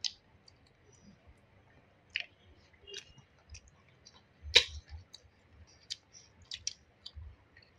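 Sparse clicks and light taps of tableware: plates and spoons handled while eating, with one sharper clack about four and a half seconds in.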